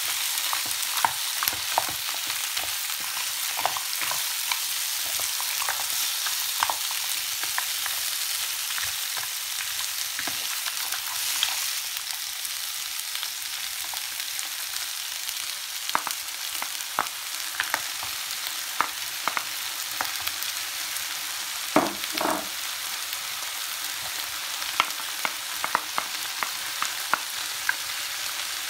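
Mussels in their shells and mixed vegetables sizzling steadily in a frying pan while being stirred with a wooden spatula, with scattered clicks and knocks of the spatula and shells against the pan. A louder double knock comes about three-quarters of the way through.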